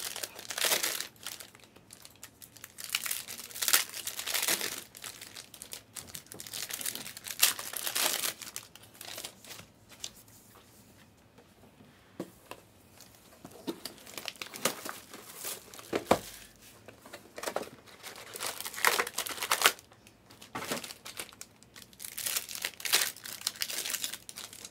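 Foil wrappers of Panini Chronicles basketball card packs crinkling and being torn open, in repeated bursts of rustling with a quieter stretch near the middle.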